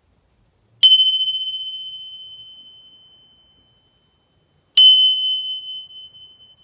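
Tingsha, a pair of small brass cymbals joined by a cord, struck together twice about four seconds apart; each strike gives a high, clear ring that fades slowly.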